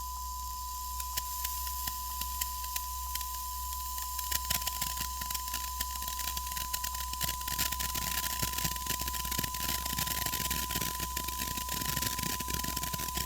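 Japanese hand-held firework burning and sparking: a few scattered pops of sparks at first, then from about four seconds in a dense, continuous crackle of tiny spark bursts over a hiss.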